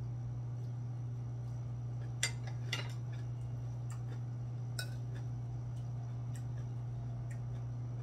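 Chopsticks and a spoon clinking against ceramic bowls and plates, a few sharp clicks with the two loudest a little over two seconds in, over a steady low hum.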